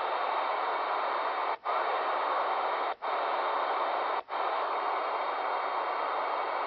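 Steady static hiss from a President Grant CB radio's speaker with no station on the channel, cutting out briefly three times about a second and a half apart.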